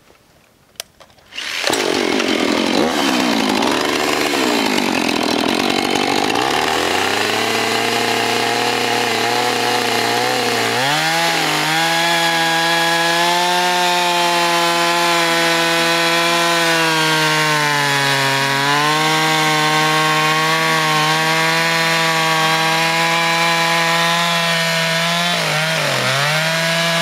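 Husqvarna two-stroke chainsaw that comes in abruptly about two seconds in, its engine speed wandering at first. It then runs at high speed cutting through an old hand-hewn log, and its pitch sags under load twice, the second time near the end.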